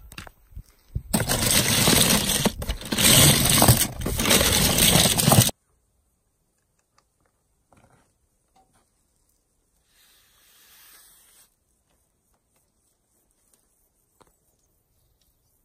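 Die-cast toy cars clattering against one another in a cardboard box: a dense metallic rattle for about four seconds that stops abruptly, followed by near silence with a faint hiss and a small click.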